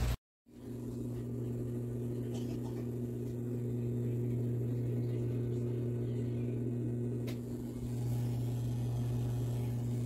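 IAGREEA IA-DW01 portable countertop dishwasher running with a steady low motor hum from its wash pump. A few faint clicks sound over it. The hum dips briefly just before the end, then comes back stronger. The water is not spraying up as it should, so the pump is running without washing properly.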